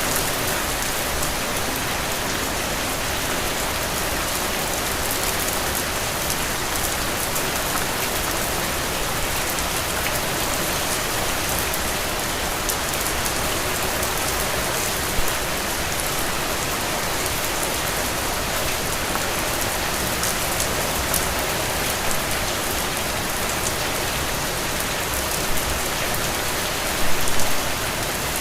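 Steady rain falling on a surface, a dense even hiss with scattered drop ticks, and a few louder drips near the end.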